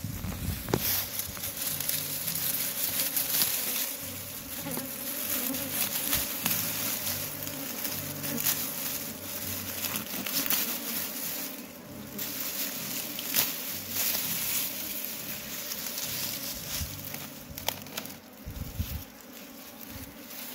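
Bees buzzing close by, the flight drone rising and falling in pitch as they fly around, with the rustle and crackle of dry grass being handled.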